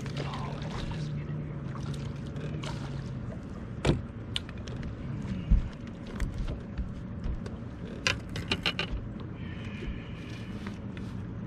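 A steady low hum, most likely the bow-mounted electric trolling motor, runs under a bass being landed in a long-handled net. The net and gear clatter and knock on the boat deck, with a single hard thump about five and a half seconds in and a quick flurry of knocks and splashy clicks around eight seconds.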